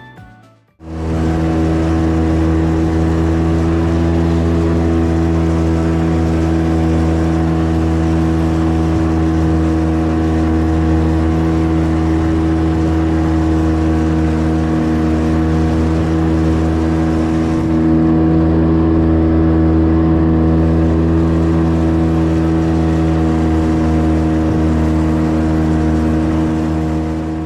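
An engine running at a steady speed, its pitch even and unchanging throughout. It fades in about a second in and fades out at the end.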